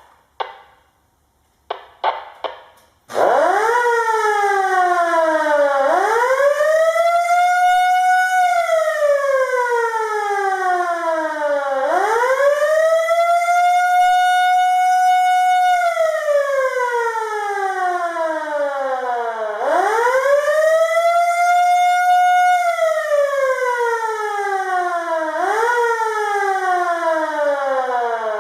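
Federal Signal Model L siren wailing: after a few short clicks it starts about three seconds in. Its pitch climbs for several seconds, holds at the top, then slides down, in three slow rise-and-fall cycles about eight seconds apart. A short final rise near the end gives way to a falling wind-down.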